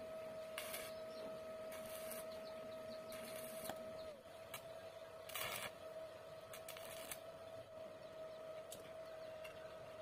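Short scrapes and clinks of steel rebar rods being handled and laid out around a ceramic tile, about eight in all, over a steady high-pitched hum.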